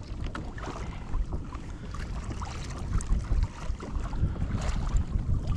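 Wind buffeting the microphone on a fishing kayak at sea, with water lapping against the hull. Scattered light clicks and knocks run throughout.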